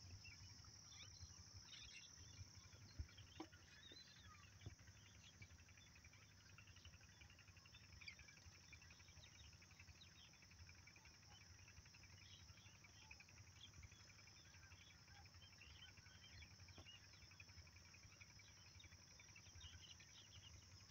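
Faint countryside ambience: insects chirring steadily in one high, thin band, with many small bird chirps scattered over it and a low rumble beneath. A few soft knocks come about three and five seconds in.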